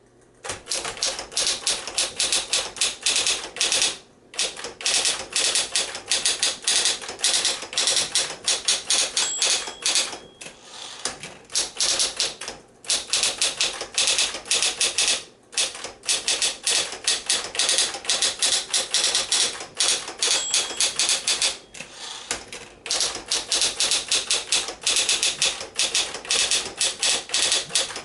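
Smith-Corona Electra 120 electric typewriter typing: rapid runs of key strikes with short pauses between runs. The machine is running smoothly after being put back in service.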